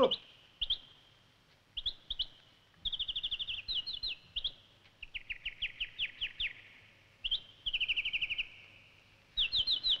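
A songbird singing, heard as the nightingale's song. It gives phrases of rapid, high chirps and trills with short pauses between them, and a run of slower notes sliding downward around the middle.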